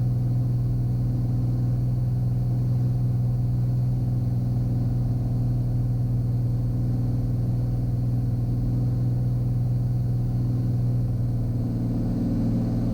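Cirrus SR22T's turbocharged six-cylinder engine and propeller droning steadily at about 30% power on approach, heard inside the cabin. The pitch of the drone shifts slightly near the end.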